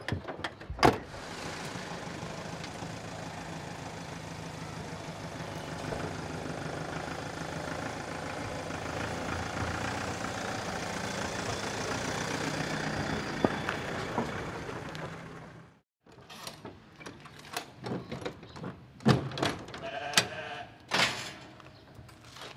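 A vehicle door slams shut, then a livestock truck's engine runs steadily as it drives off towing a horse trailer. After a cut, metal clanks and knocks from the trailer's rear door and the steel hurdles being handled, with sheep bleating.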